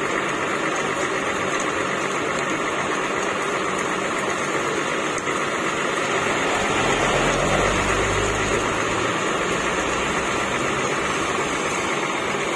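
Coach diesel engine idling steadily under a constant hiss of rain. A deeper rumble swells for about two seconds midway, then settles.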